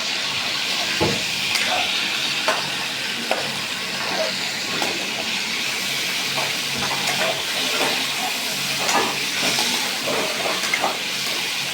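Pieces of meat frying in hot oil: a steady sizzle. Scattered short clicks and scrapes sound through it.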